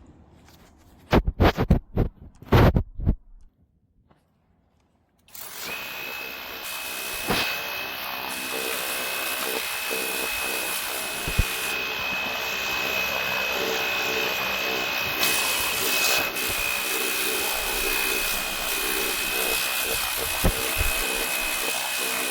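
Cordless handheld pressure washer running on a DeWalt 20V battery: a steady high motor whine under the hiss of its spray. It starts about five seconds in, after a few knocks.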